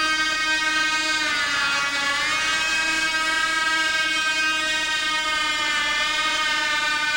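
Home-built VTOL model aircraft's engine and rotor running as it hovers, a steady loud whine with many overtones. The pitch sags briefly about a second in and again near the end, then comes back up.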